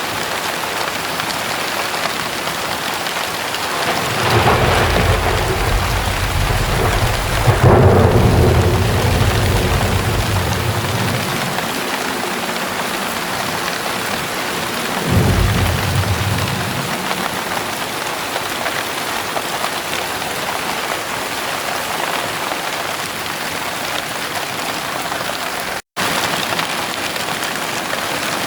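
Heavy rain pouring steadily, with thunder. A long rolling rumble starts about four seconds in and peaks with a sharp crack partway through. A second, shorter rumble follows about halfway through. The sound cuts out for an instant near the end.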